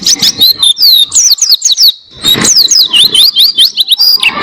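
Pleci (white-eye) singing a long, fast, loud song of high whistled notes, several quick sweeps a second, most of them falling in pitch, with a brief pause about two seconds in. A steady high tone runs underneath.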